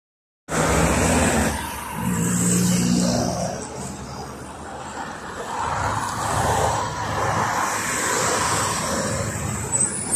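City road traffic: cars driving past with engines running and tyres on the road, starting abruptly about half a second in. Near the end a PAZ 32054 bus approaches the stop and a thin, high squeal sounds.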